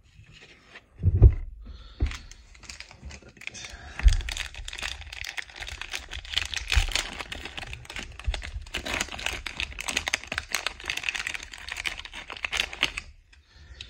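A few dull thumps of a trading-card pack being handled, then the pack's plastic wrapper crinkling and crackling steadily as it is torn open, stopping suddenly near the end.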